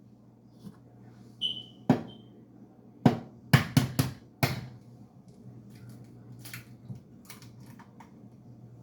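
A short high electronic beep, then a run of sharp knocks and clatter, the loudest a few seconds in, with lighter taps after, over a steady low hum: kitchenware being handled.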